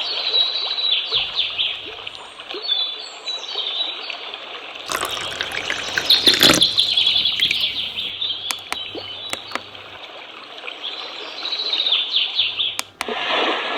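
Nature-sound white-noise track: birds chirping over running water, with a louder rush of water around the middle.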